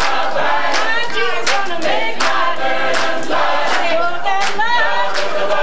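Gospel choir singing, with sharp claps keeping the beat about every three-quarters of a second.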